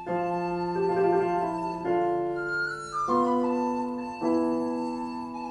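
Classical instrumental music: held notes and chords that change every second or so, with a short descending run about halfway through.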